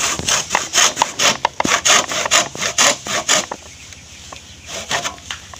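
Hand saw cutting through a bamboo tube in quick, even back-and-forth strokes, about five a second, stopping about three and a half seconds in.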